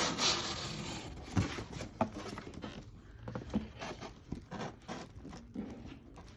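Packaging being unwrapped by hand: a burst of rustling and crinkling for the first second and a half, then scattered small crinkles, taps and scrapes as the decoration is handled.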